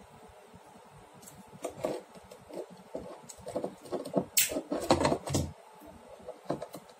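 Handling noise of a plastic wall switch and wires being worked by hand: irregular clicks, taps and rustles, with a busier, louder cluster of knocks about four to five seconds in.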